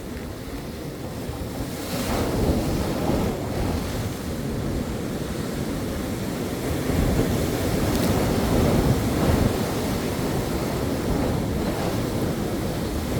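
Ocean surf: a steady rushing wash of waves that swells about two seconds in and again about seven seconds in, with wind on the microphone.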